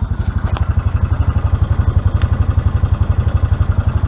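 Hisun Vector 500 UTV's single-cylinder four-stroke engine idling with an even, rapid putter, running smoothly after a top-end rebuild. A few light clicks sound over it.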